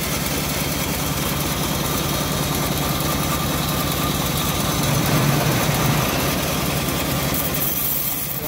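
Homemade engine-driven bandsaw mill running steadily under load as its blade rips a hard johar log lengthwise, the engine's even beat swelling slightly about halfway through.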